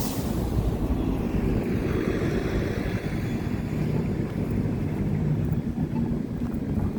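Steady low rumble of street traffic, with a vehicle passing in the first few seconds.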